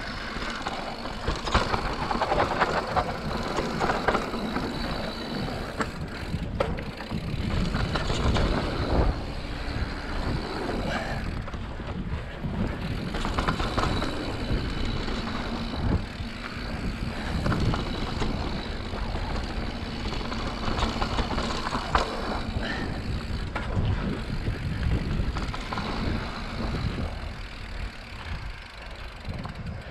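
Mountain bike riding down a dry, rocky dirt trail: knobby Maxxis tires rolling over dirt and rock, with frequent knocks and rattles from the bike over bumps.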